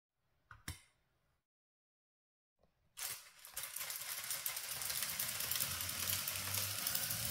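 A single knock under a second in as a weight plate is set onto the trailer. From about three seconds in, a LEGO Technic electric motor and its gear train run steadily with a low hum and rattle as the car, locked in its fastest gear, tows the heavily weighted trailer: the motor is under strain but keeps the load moving.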